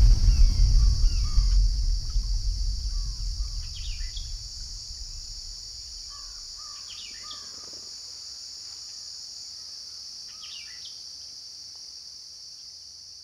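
Natural outdoor ambience: a steady, high insect drone with scattered short bird chirps. A low rumble fades out over the first few seconds.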